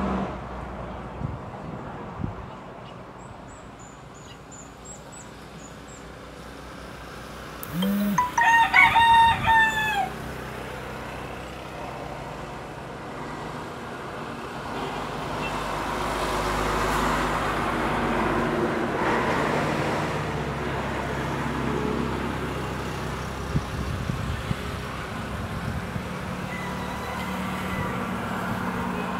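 A rooster crows once, about eight seconds in: a long, broken, pitched call and the loudest sound here. A few faint high chirps come before it, and a steady outdoor noise swells and fades in the second half.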